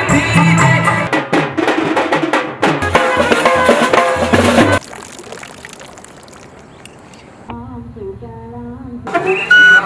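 Background music with drums and a melody, which drops off abruptly about halfway through. After a few quieter seconds with a faint tune, a flute-led piece comes in near the end.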